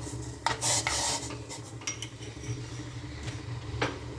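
Metal utensils clattering and scraping as freshly pounded masala is scraped out of a mortar into the pot, the busiest clatter about half a second to a second in, then a few scattered taps, with one more near the end. A steady low hum runs underneath.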